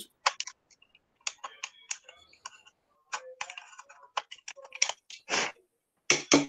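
Computer keyboard typing: irregular runs of keystroke clicks with short gaps between them.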